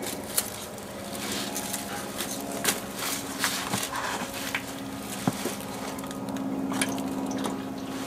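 Scattered scrapes, clicks and rustles of a gloved hand and a stick rummaging through dry leaves and dirt, over a steady low hum.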